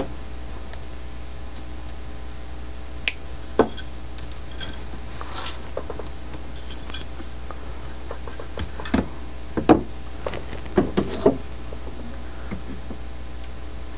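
Scattered small metallic clicks and taps of pliers and fine wire being handled on a cutting mat, with a wire spool picked up and set down; the clicks are busiest a little past halfway. A steady low hum runs underneath.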